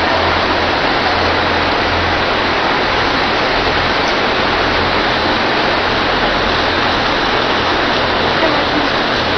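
Steady, even rushing noise of packaging machinery and conveyors running on a candy factory floor, with a low hum underneath.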